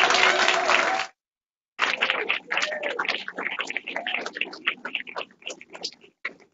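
Audience applauding, loud and dense at first. The sound drops out completely for under a second about a second in, then comes back as thinner, scattered clapping that fades toward the end.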